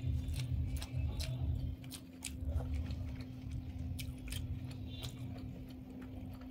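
Close-miked eating: chewing with sharp wet mouth clicks a few times a second, heavier and deeper in the first couple of seconds, then lighter, over a faint steady hum.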